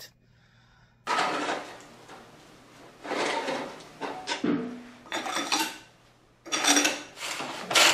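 Socket ratchet clicking on a motorcycle fork top cap bolt, in about four rasping bursts after a quiet first second.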